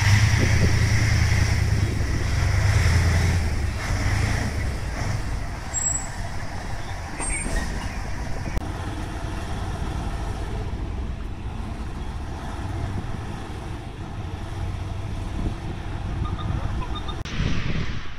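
Fire engine's diesel engine running close by, loudest in the first few seconds and then a steadier, lower rumble as another fire engine moves up the street.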